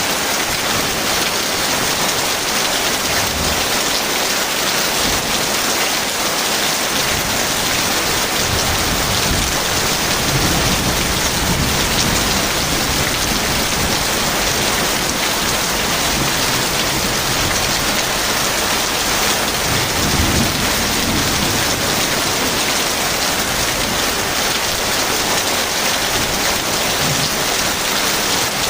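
Heavy rain falling steadily as an even hiss, with low rumbles of thunder swelling about ten seconds in and again around twenty seconds in.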